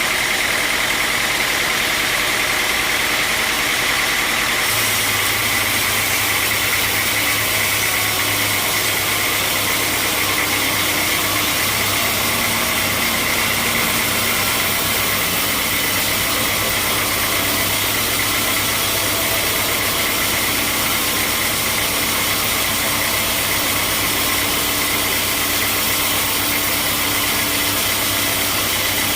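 Sawmill machinery running steadily with a dense mechanical noise; about five seconds in, a deeper steady hum joins in.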